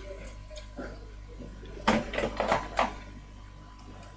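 A quick run of four or five light knocks and clatter, about two seconds in, from hard objects being handled and set down on a repair bench, over a faint steady high tone.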